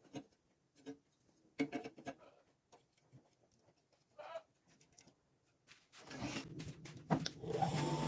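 Scattered light clicks and knocks of metal parts being handled. About six seconds in, a motor starts up and its running noise builds toward the end.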